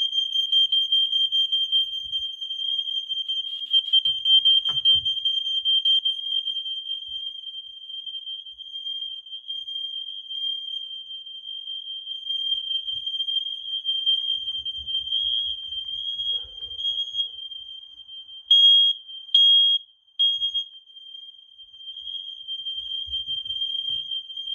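Smoke alarm sounding a steady, high-pitched alarm tone, set off by aerosol smoke test spray. The tone swells louder in short spurts and cuts out for a moment near the end.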